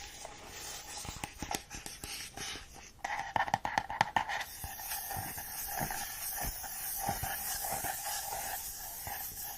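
Close-miked ASMR sounds: scattered clicks and crackles, denser about three seconds in, then a steady soft hiss for the rest.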